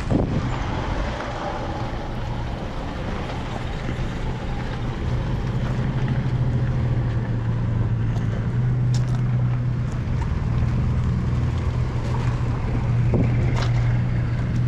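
A motor running steadily nearby, a constant low hum, with wind noise on the microphone.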